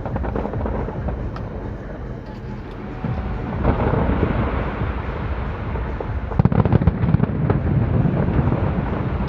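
Aerial fireworks display: continuous low booming with crackling, and a rapid cluster of loud bangs about six and a half seconds in.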